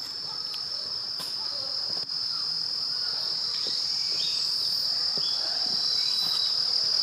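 Insects singing in a steady, continuous high-pitched chorus, with a few faint short sounds over it.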